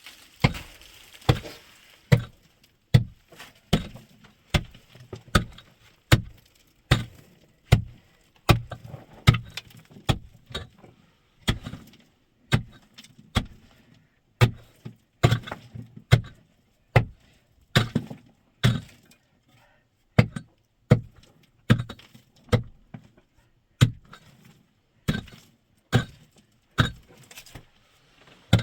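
A hand tool striking hard again and again, about one blow a second, with a short pause about two-thirds of the way through.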